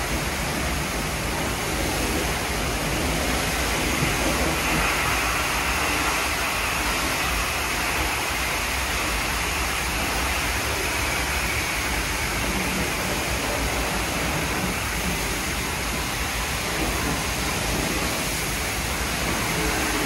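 WashTec SoftCare Bravo rollover car wash spraying water over a car: a steady rushing hiss of water jets.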